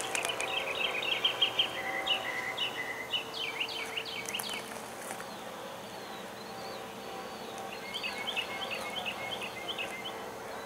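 A songbird sings in quick runs of short repeated chirps, pausing for a couple of seconds midway, over a faint steady hum.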